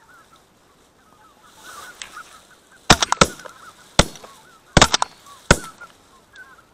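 A flock of wild geese honking overhead, the calls thickening a second or so in, then a quick volley of shotgun shots from several guns: a cluster of about four shots around three seconds in, one at about four seconds, another quick cluster near five seconds and a last shot just after.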